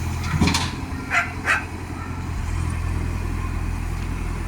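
An engine running steadily, with a dog barking about three times in the first second and a half.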